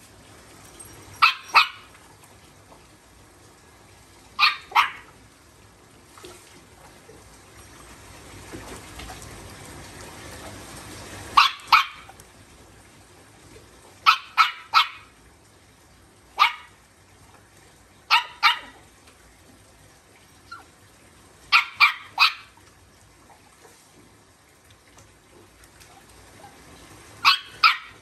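Small Shih Tzu dogs barking in short, sharp barks, two or three at a time, in clusters every few seconds.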